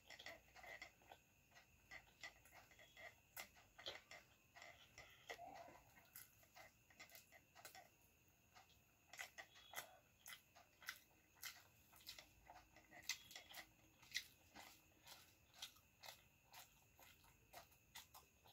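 Faint eating sounds: pasta being chewed, with many irregular soft mouth clicks and smacks, and fingers scooping pasta from a plate.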